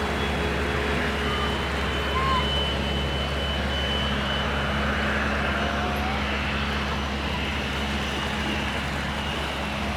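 Dassault Falcon 2000LX business jet's twin Pratt & Whitney Canada PW308C turbofans running steadily: a constant rushing noise with a thin high whine over it.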